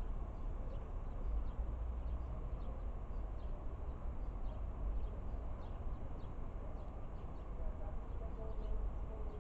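Wind buffeting the microphone as a steady low rumble, with faint, irregular short chirps in the background.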